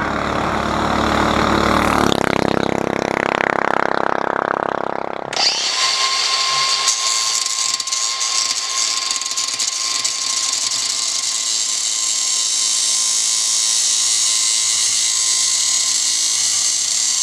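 DeWalt angle grinder's disc cutting into a Predator 212 engine block: a steady high whine, starting abruptly about five seconds in. Before it, a lower, different sound rises and falls for a few seconds.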